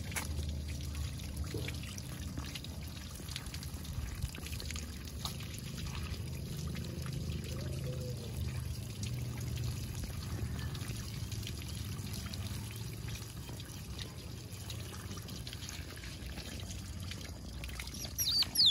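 Water from a garden hose pouring and splashing onto a baby otter and the surface it stands on. Just before the end, a few short, high squeaks from the otter, the loudest sounds here.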